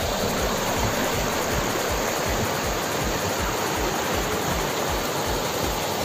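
River water rushing and churning over shallow rock ledges below a waterfall, a steady unbroken rush.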